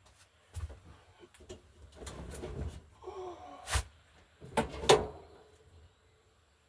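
Objects being pulled out and shifted around, with scraping and several knocks, the loudest two sharp knocks a little past the middle.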